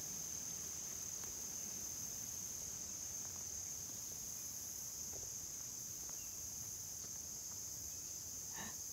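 Steady, high-pitched chorus of crickets trilling without a break.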